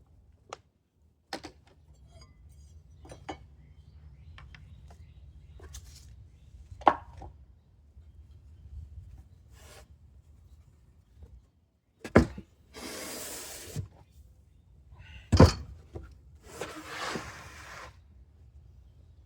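Woodworking handling sounds: scattered clicks and knocks of wood and tools, two sharp loud thuds, and two rasping strokes about a second long each, over a low hum.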